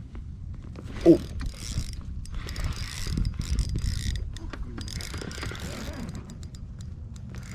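Pflueger President spinning reel being cranked, its gears clicking as line winds on, in three stretches of a second or two each. A short sharp sound about a second in, with a steady low wind rumble on the microphone.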